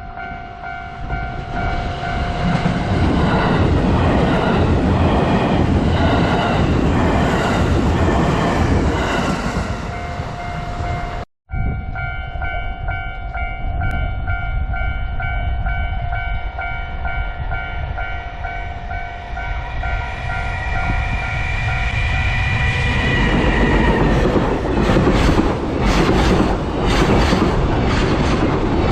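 Japanese level-crossing warning bell ringing steadily while a train runs over the crossing, its wheels clattering rhythmically over the rail joints. After a cut about eleven seconds in the bell rings on with less train noise, and another train's wheel clatter comes in loudly near the end.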